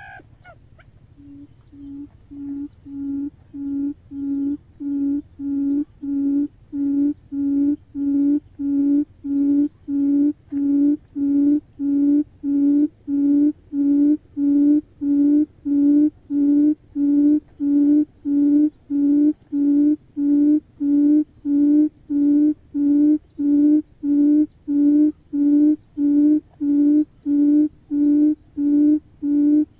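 Buttonquail's booming call: a long run of low, even hoots, about one and a half a second, swelling in loudness over the first few seconds and then holding steady.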